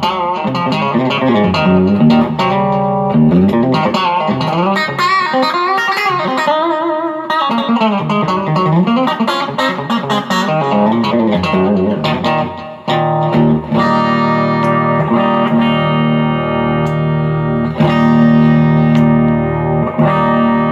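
M-Musi Virgo Fusion electric guitar with its humbucking pickups coil-split, played through an amp: a run of single-note lines with bent notes, then a chord struck about 13 seconds in and left ringing. There is not a whole lot of volume drop with the coils split.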